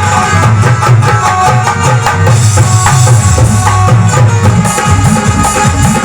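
Loud live Indian band music: a rapid dholak hand-drum rhythm with a sustained melody line playing over it.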